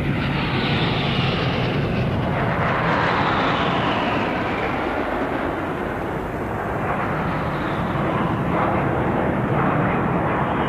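Military jet aircraft flying low overhead in formation. The jet noise swells and falls as successive groups of planes pass.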